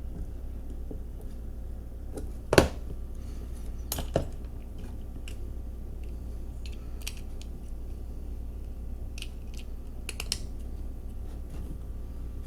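Scattered small clicks and taps of tools and tiny parts being handled while swapping the wheels on a die-cast toy truck, with the loudest click about two and a half seconds in and another about a second and a half later. A steady low hum sits underneath.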